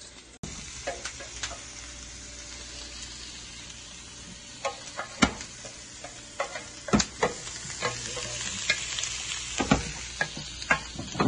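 Olive oil and butter sizzling in a hot pan with black peppercorns. From about halfway through, the peppercorns begin popping with sharp cracks that come more often toward the end, the sign that the oil is hot enough to sear.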